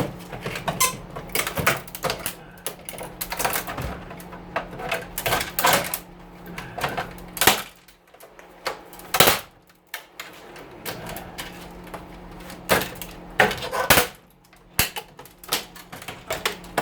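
Irregular clicks, knocks and rattles of hand tools working on an oven's sheet-metal and stainless housing as it is taken apart. A steady low hum runs underneath.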